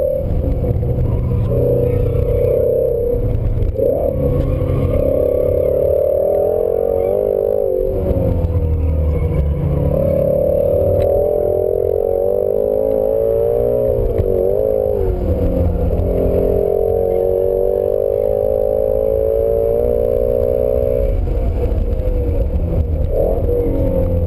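2017 Ford Shelby GT350 Mustang's 5.2-litre flat-plane-crank V8, heard from inside the cabin at track pace. Its pitch climbs repeatedly as it pulls through the gears and drops back under braking and downshifts for the corners, over a steady rumble of road and tyre noise.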